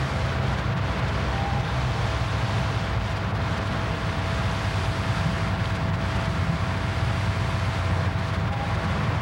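Steady rushing noise with a low, fluttering rumble, typical of wind buffeting a camcorder microphone, with a faint steady tone underneath.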